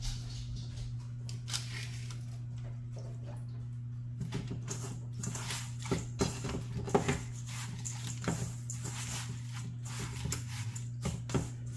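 Crushed-crouton crumbs crackling and rustling in scattered bursts as raw chicken breast is pressed and turned in them, densest in the middle and near the end. A steady low hum runs underneath.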